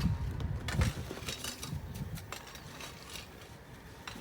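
Irregular knocks and clinks of stone foundation work, with a low thump about a second in, then sparser, fainter taps.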